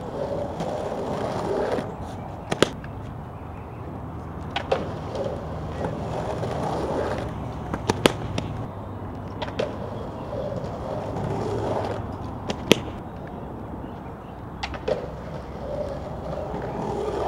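Skateboard wheels rolling on concrete, the rolling rising and falling in several passes. Several sharp clacks of the board are spread through it.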